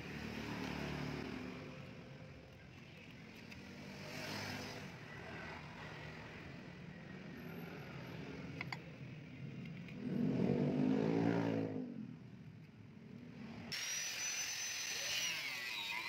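A vehicle engine rises and falls about ten to twelve seconds in. About two seconds before the end an electric angle grinder starts with a high whine, and its pitch drops as the disc bites into a wooden board.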